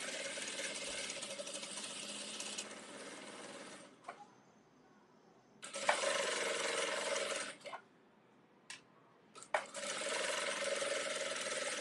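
Industrial single-needle sewing machine running at steady speed, stitching a side seam through thin fabric in three runs with short pauses between them as the fabric is repositioned. The seam is the first pass of a French seam.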